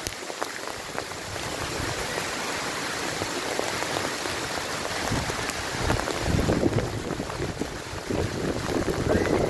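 Hailstones pelting the road, pavement and parked cars in a dense, steady hiss of small impacts. From about halfway through, gusts of wind buffet the microphone with a low rumble.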